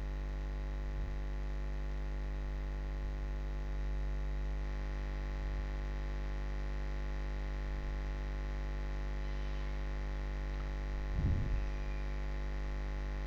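Steady electrical mains hum with its overtones, from the recording setup, with one brief faint sound about eleven seconds in.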